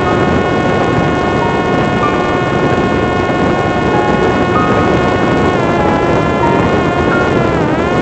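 Parrot Disco fixed-wing drone in fast flight, recorded on board: the electric motor and propeller give a steady whine over a loud rush of wind. The pitch sags and recovers near the end.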